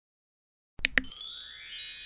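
Two quick taps, then a shimmering upward glissando of bell-like chime tones that rings on and slowly fades: a magical transition chime effect.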